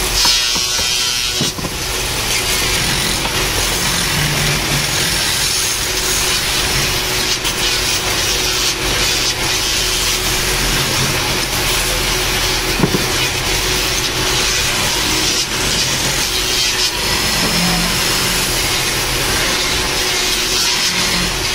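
Belt-driven wood lathe running while a hand chisel cuts a spinning wooden cricket bat handle: a steady hiss and scrape of wood being turned over the machine's hum.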